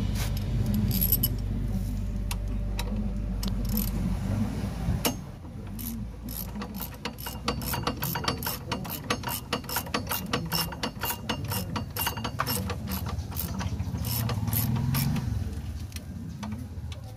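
Ratchet wrench clicking in quick runs as it turns a bolt on a car's front brake caliper, over a low hum that stops about five seconds in.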